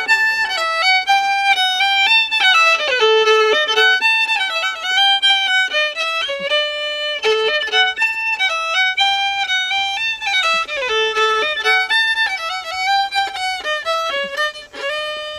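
Solo fiddle playing a quick tune, stepping briskly from note to note and ending on one long held note near the end.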